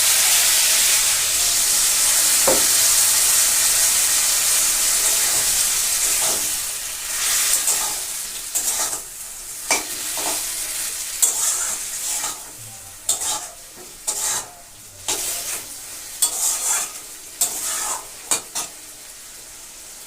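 Food sizzling in a hot pan, loud and steady for the first several seconds and then dying down, broken by a string of short, irregular scrapes and clatters of stirring.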